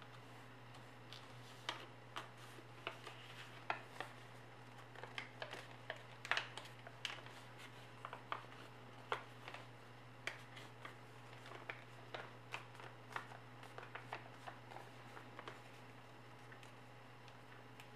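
A paper airplane being folded and creased by hand: irregular crinkles and crackles of paper with soft taps, over a low steady hum. The handling stops a couple of seconds before the end.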